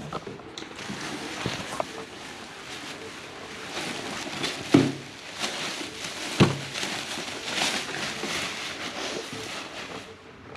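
Rummaging through a bag of mixed items: a steady rustling and crinkling of bags and handled goods, with sharp knocks as things are set down, the two loudest about five and six and a half seconds in.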